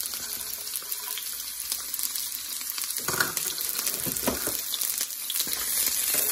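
Onion and garlic sizzling in hot olive oil in a nonstick frying pan, a steady hiss. A few short scrapes and taps come about three to four seconds in as the minced garlic is tipped in.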